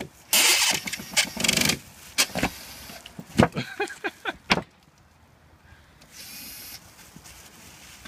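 Cordless drill backing screws out of a metal fridge door in several short whirring bursts, its pitch rising and falling with the trigger, with a few sharp knocks.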